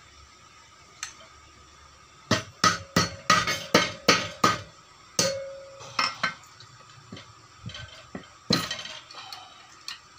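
Sharp metallic clinks and knocks of steel against a bench vise. A quick run of about eight comes a couple of seconds in, then scattered ones follow, one of them ringing briefly.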